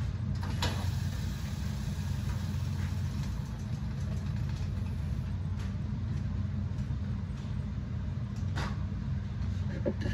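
A steady low mechanical hum, with a few light knocks as a steel pot is moved onto the electric coil stove, the clearest about half a second in.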